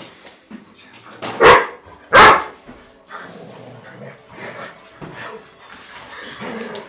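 Dogs barking at play: two loud barks, about a second and a half in and again under a second later, then quieter, scattered dog noises.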